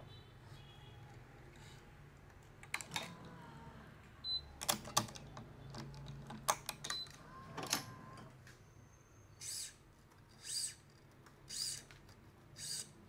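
Badminton racket string being worked through the frame: a scatter of sharp clicks and snaps, then four hissing pulls about a second apart as the string is drawn through.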